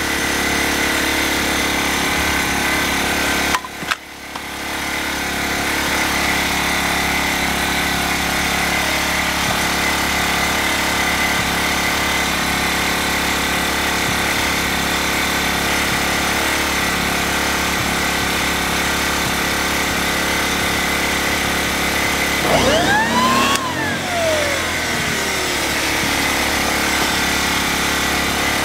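Ryobi RYi1000 inverter generator's small engine running steadily under light load. There is a brief drop in level about four seconds in, and a short whine rises and falls near the end.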